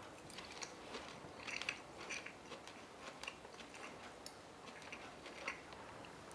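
Faint, irregular small clicks and soft crunches, a few a second and unevenly spaced, with a louder cluster about one and a half seconds in.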